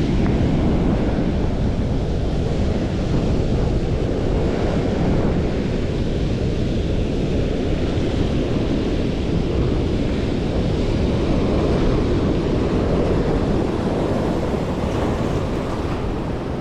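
Strong wind buffeting the microphone in a steady, heavy rumble, with sea waves washing in underneath.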